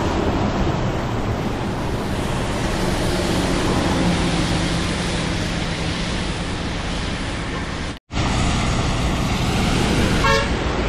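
Buses driving past on a wet road: steady tyre spray hiss over a low engine drone. After a cut, a coach runs close by, and a short horn toot sounds near the end.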